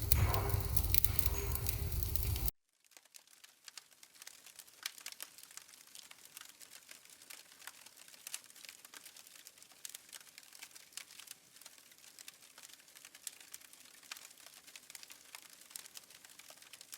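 A wood fire in a home fireplace crackling freshly lit: many faint, irregular pops and snaps. For the first two and a half seconds a louder rustling noise with a low rumble comes first, then it cuts abruptly to the quieter crackle.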